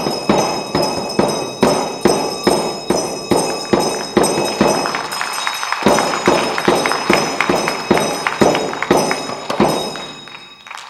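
Tibetan Reba hand drums, round frame drums on handles struck with curved beaters, beating a fast steady rhythm of about three strokes a second, with high ringing tones above the beat. The drumming fades away near the end.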